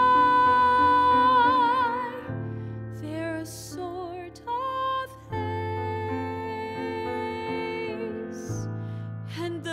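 A woman singing a slow ballad to grand piano accompaniment. She holds a long note that goes into vibrato in the first two seconds, sings a few short phrases, then holds another long note, while the piano's chords change under her every few seconds.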